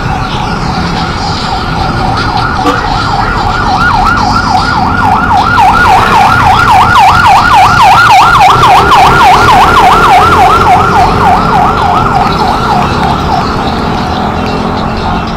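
Emergency vehicle siren on a fast yelp setting, its pitch sweeping up and down about four times a second; it grows louder, peaks in the middle and fades away as the vehicle passes, over low wind and road rumble.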